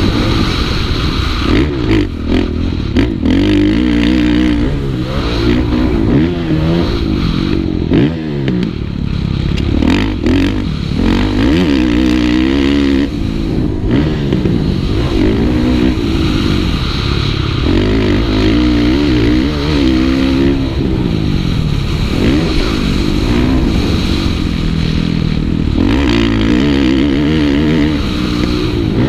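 Kawasaki KX450F four-stroke single-cylinder motocross engine, heard from the rider's helmet, revving up and dropping off again and again as the throttle is worked on and off through the straights, jumps and turns.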